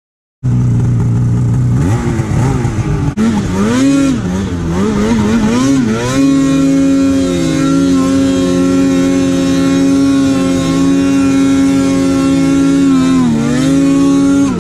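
Two-stroke mountain snowmobile engine under throttle: a low steady run at first, then revs swinging up and down for a few seconds, then held high with slight wavering as the sled rides through deep powder, dipping briefly near the end.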